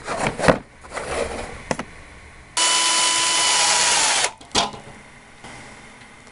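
Ryobi 12V cordless drill/driver running with a step drill bit, boring a hole through a metal synthesizer panel. A steady whine lasts about two seconds, dropping in pitch as the drill stops. A few clicks come before it and one after.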